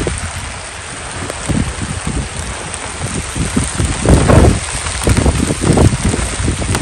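Rain falling steadily, an even hiss, with irregular low rumbling thumps on the microphone that are loudest about four seconds in and again a little later.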